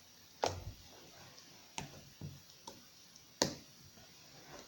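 Homemade butter slime, made from white glue and red clay, being worked in the hands. It gives about five short, sharp pops and clicks, the little crackles that this slime makes.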